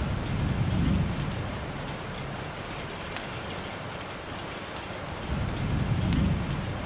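Steady rainfall hiss with two low rumbles of distant thunder, one at the start and one about five seconds later, each lasting a second or so.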